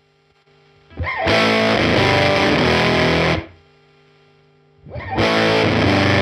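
Electric guitar played through a UAFX Woodrow '55 amp-modelling pedal with every control turned up, giving a heavily overdriven, near-fuzz tone. Two strummed chords ring about two seconds each and then cut off sharply, with a low steady amp hum in between.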